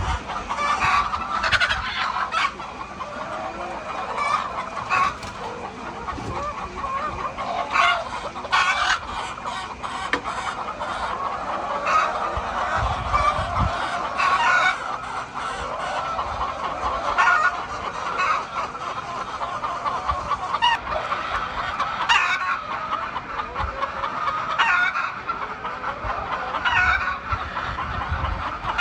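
A flock of laying hens clucking and squawking continuously, many birds calling over one another, with frequent short louder calls.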